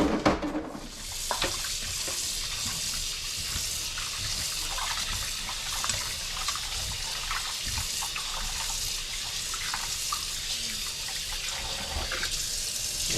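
Kitchen tap running steadily into a sink, starting about a second in, with a few light knocks.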